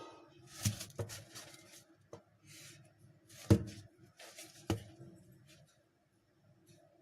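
A doorbell's box and packaging being handled, rustling and scraping, with four sharp knocks, the loudest about three and a half seconds in, over a faint steady hum.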